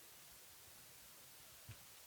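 Near silence: faint steady hiss, with one small click near the end.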